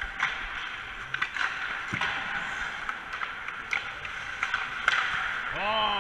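Ice hockey practice on a rink: skate blades scraping the ice, with scattered clacks of sticks and pucks, and a short shout near the end.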